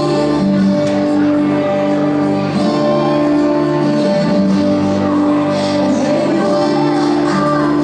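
Music: a song with a singing voice over held, sustained instrument notes.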